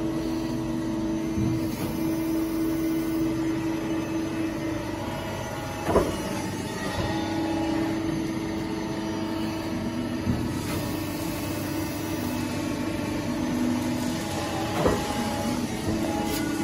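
Steady hum of a CNC press brake's hydraulic pump unit running idle, with a constant mid-pitched tone that fades and returns. Three short sharp knocks stand out, spread through the stretch.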